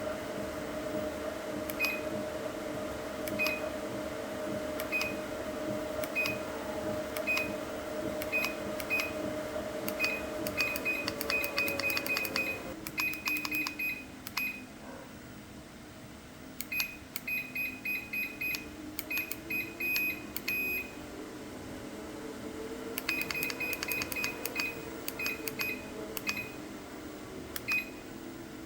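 BYCON walking-pad treadmill's motor running unloaded, with a steady hum, while its controls give many short beeps at one pitch, singly and in quick runs, as the speed is changed. The hum drops in pitch about halfway through, then rises and falls again near the end.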